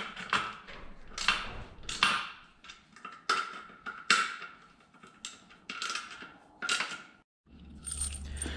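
Irregular metal clinks and taps, each with a short ring, from wrench, bolts and plates knocking together while an aluminium motor mount is bolted onto a steel kart riser plate. About seven seconds in the sound cuts off abruptly, and a low steady hum follows.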